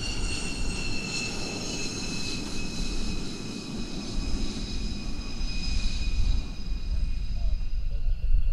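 McDonnell Douglas F-15 Eagle's twin jet engines: a steady low rumble with a high whine that slowly falls in pitch and fades out near the end.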